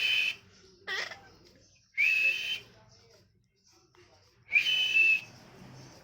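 Indian ringneck parrot giving shrill whistled calls: four short calls, each well under a second, sliding quickly up and then held on one high pitch.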